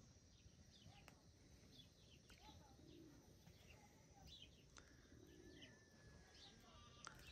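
Faint birdsong: small birds chirping over and over and a dove cooing low, with a few faint sharp clicks.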